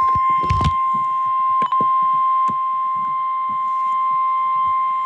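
Emergency alert attention tone: the National Weather Service's 1050 Hz warning alarm, one steady loud beep at a single pitch. It signals that a warning message is about to be read. Faint clicks sound under it about one and a half and two and a half seconds in.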